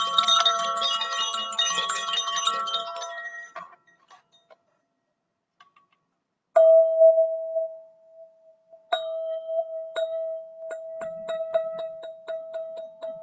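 Golden ZenTube sound-healing instrument played: a dense shimmer of many ringing tones fades out about four seconds in. After a brief silence, one strike rings a single steady tone. From about nine seconds, quick repeated strikes, roughly three or four a second, keep that tone sounding.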